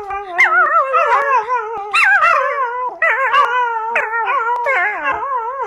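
Puppy howling in long, wavering notes, in two stretches with a short break about three seconds in.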